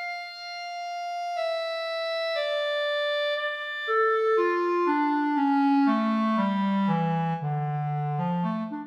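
Solo B-flat clarinet playing an etude: a long held note, then a run of separate notes stepping down into the low register and turning back up near the end.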